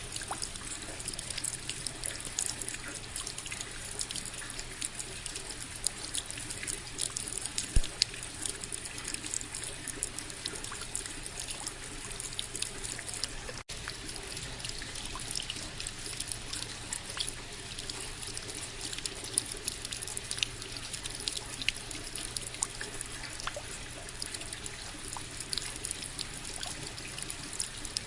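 Steady rain, with many individual drops ticking close by over a continuous wash of water noise. The sound drops out for an instant about halfway through.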